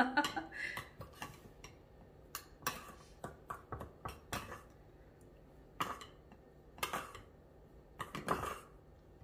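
Metal spoon clinking and scraping against a small ceramic bowl and a stainless steel shaker while ground seasoning is spooned from one into the other: irregular short clinks, a few louder ones in the second half.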